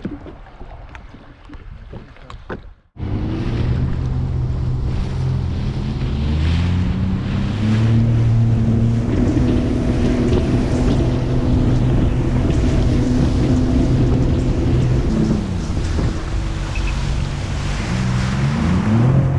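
Faint water sounds with a few small knocks, then, about three seconds in, a 2021 Sea-Doo GTX 170 personal watercraft running at speed. Its engine drones steadily under rushing water against the hull and wind on the microphone, and the engine note shifts slightly near the end.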